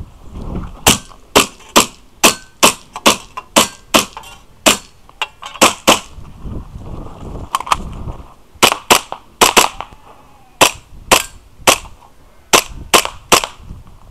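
Custom Tokyo Marui Hi-Capa 5.1 gas blowback airsoft pistol fired rapidly: about thirty sharp shots in pairs and quick strings, with short pauses between them.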